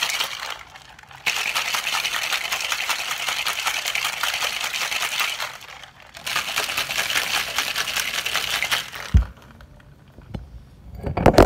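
Ice rattling hard inside a stainless steel cocktail shaker as a drink is shaken, in three long bouts with short pauses about a second in and about six seconds in. About nine seconds in it stops with a thump as the shaker is set down, and there are a few knocks near the end.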